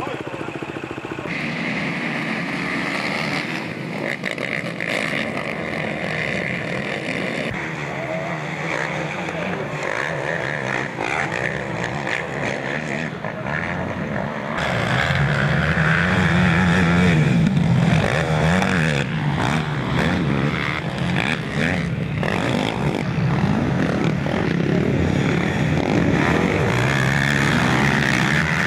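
Racing quads' engines running on a dirt track, revving up and down as the riders work the throttle. They grow louder about halfway through.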